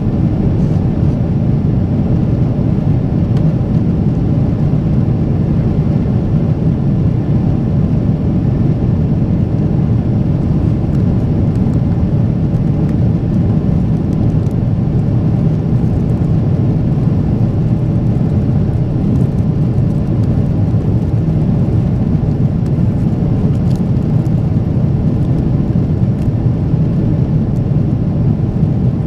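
Boeing 777-300ER jet engines (GE90-115B) and rushing air heard inside the passenger cabin, a loud, steady, low noise with no change in pitch or level.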